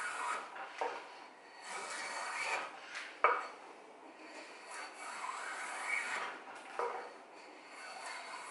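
Homemade drawknife, made from old planer blades, shaving a wooden pole: about four scraping pull strokes, each roughly a second long, with sharp knocks between them, the loudest about three seconds in.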